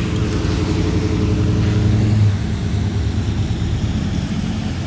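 A motor vehicle's engine running with a steady low hum that drops off a little over two seconds in, leaving a lower rumble.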